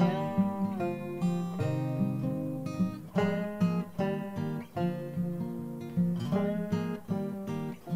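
Acoustic guitar music: a steady run of plucked notes.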